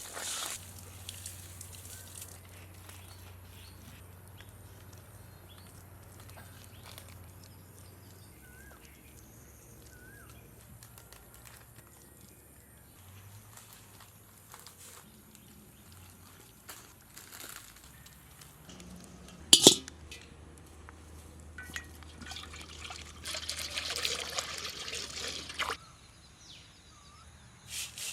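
Liquid being poured and trickling during cooking. There is a single sharp knock about two-thirds of the way through, and a louder stretch of pouring or splashing near the end.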